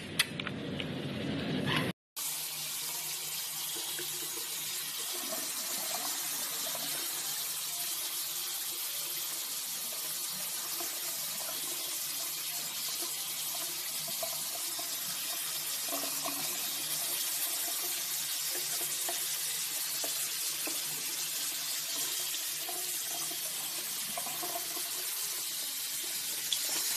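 Water running steadily from a sink tap and splashing over a small puppy held in cupped hands beneath it: an even hiss that starts after a short break about two seconds in.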